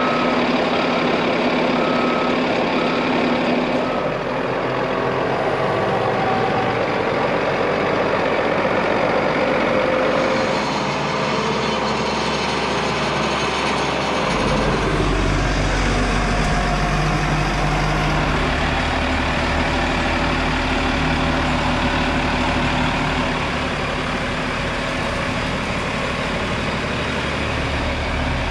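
Heavy-capacity forklift's engine running as it drives with a heavy load, its reversing beeper beeping about once a second for the first four seconds. The engine note shifts in pitch and strength several times, with a gliding change about halfway through.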